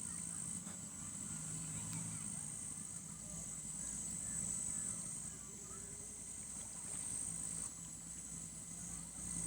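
Outdoor riverside ambience: insects chirring steadily at a high pitch over a low, steady hum.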